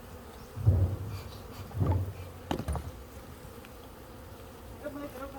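Honeybees buzzing around an open hive in a steady drone. A few louder low bumps come about a second in, near two seconds and around two and a half seconds.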